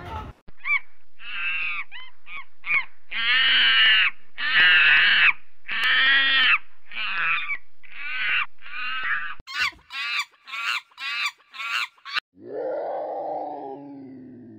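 A run of loud, shrill animal calls, each about half a second long, turning into a fast series of short sharp calls, then a lower drawn-out growl in the last two seconds.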